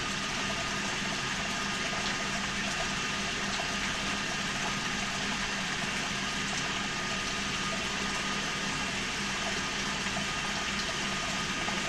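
Water running steadily in an even rush, with a low steady hum beneath it.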